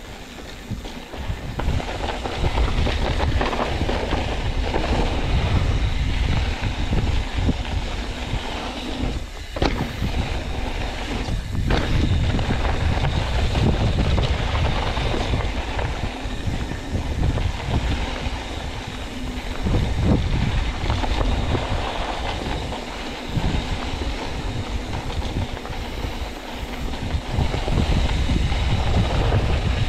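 Wind buffeting the microphone and a YT Capra mountain bike rolling fast down a dirt singletrack: steady rumble of tyres and suspension over the trail, getting louder over the first two seconds, with a couple of sharp knocks as the bike hits bumps about a third of the way in.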